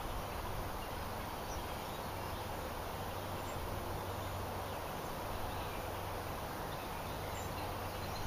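Steady outdoor background noise: an even hiss with a low steady hum underneath and no distinct events.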